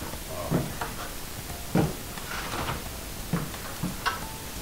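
A few dull bumps and knocks, about five short separate ones, as a heavy cast-iron piano plate is lifted against a wall onto a wooden cleat.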